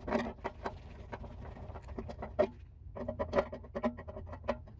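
Irregular clicks, knocks and scraping from hands and tools working on a water heater's fittings, in two busy clusters, one at the start and one from about three seconds in.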